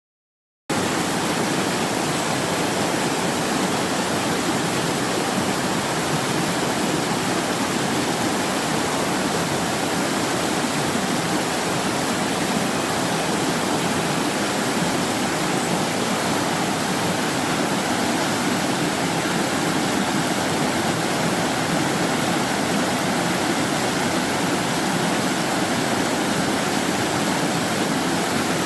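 Mountain stream rushing over rocks: a steady, even rush of water that starts abruptly about a second in.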